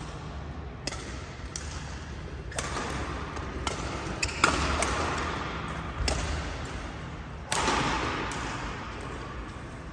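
Badminton rally: rackets striking the shuttlecock in a string of sharp smacks about a second apart, each ringing on in the echo of a large sports hall.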